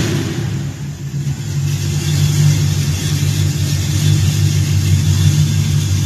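1967 Chevrolet Camaro's engine running steadily at idle, just fitted with a new MSD ignition.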